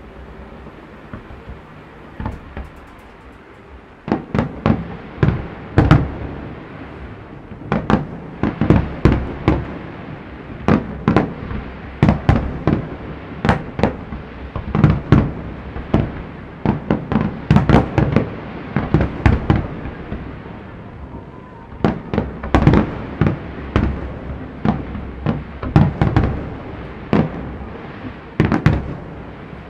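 Aerial fireworks display: shells bursting in a rapid, irregular string of loud bangs. A few bursts come first, then a dense barrage starts about four seconds in. It thins briefly about two-thirds of the way through, then picks up again before stopping near the end.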